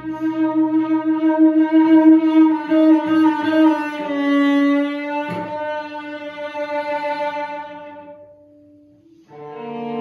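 Solo cello played with the bow in a twelve-tone piece: long held notes that change pitch a few times, fading out about eight seconds in to a short pause before a new note starts near the end.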